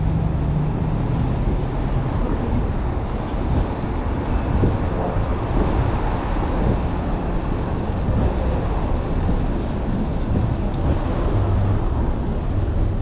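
Steady street traffic and road noise, heard from a moving bicycle, with a low rumble and no single standout event.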